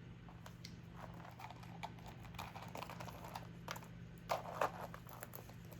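Faint handling noises of a small pouch being turned over in the hands: light taps, rustles and clicks, with two sharper clicks a little past four seconds in.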